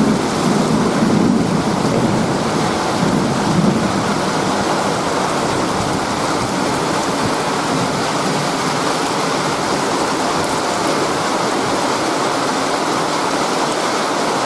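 Steady rain falling, with a roll of thunder rumbling low and dying away over the first few seconds.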